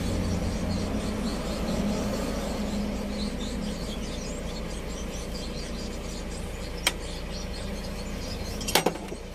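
Light handling noises of a slackened engine timing belt being worked by hand at the tensioner and sprockets, with a sharp click about seven seconds in and a couple of metal clinks near the end, over a steady low hum.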